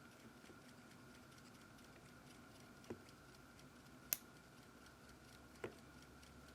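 Near silence: room tone with a faint steady hum and three small, sharp clicks from handling the toy's plastic parts, the sharpest about four seconds in.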